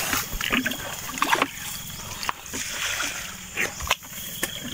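Shallow muddy water splashing and sloshing, with scattered small knocks.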